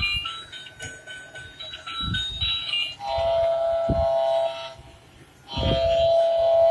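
Bump-and-go toy boat's electronic sound chip: a short tinny run of beeping notes, then two long horn-like blasts, the first about three seconds in and the second about five and a half seconds in.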